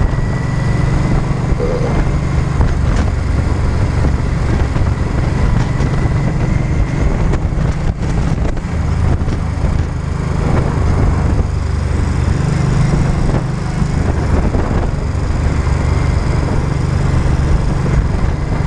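Cruiser motorcycle's engine running steadily while riding at town speed, its low note shifting a little about two-thirds of the way through, with a steady rush of wind and road noise.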